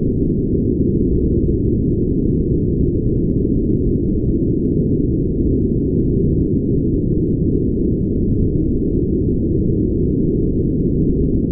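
Brown noise: a steady, deep, even rushing sound with all its weight in the low end and no high hiss.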